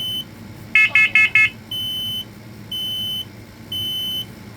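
Smoke alarms sounding in test mode. About a second in, one alarm gives four rapid, harsh beeps. Then comes the three-beep temporal-3 evacuation pattern of half-second beeps about a second apart, the standard smoke-alarm warning signal.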